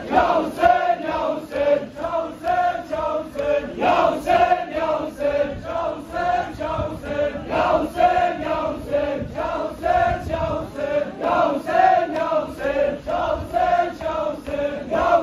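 Large crowd of male mourners chanting a short refrain over and over in unison at a steady, quick beat, in time with matam, rhythmic beating of their chests.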